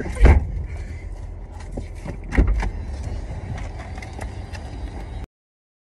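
Two heavy car door slams about two seconds apart, heard from inside the car, each a hard thump with a deep boom; the first is the louder. The sound cuts off suddenly near the end.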